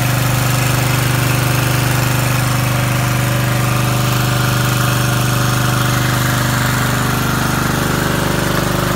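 Small engine-driven water pump running steadily at a constant speed, supplying water through the hoses to a gold sluice's spray bars.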